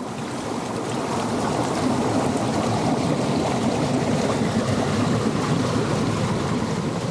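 Steady rushing of ocean surf washing over the shore, rising over the first couple of seconds and then holding even.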